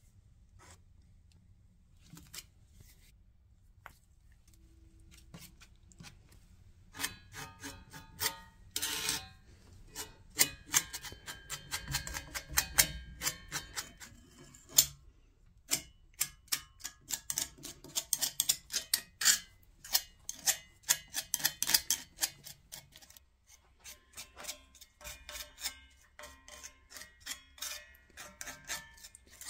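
Filler being scooped from a tin and spread onto a cast-iron bench frame with a spreader blade: rapid clicks and scrapes, sparse at first, thick and fast from a few seconds in, then thinning out near the end.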